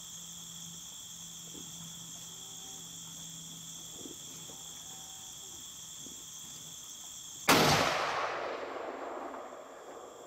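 Steady chorus of night insects, then about two-thirds of the way in a single rifle shot at a hog, its report rolling off in an echo that fades over about two seconds.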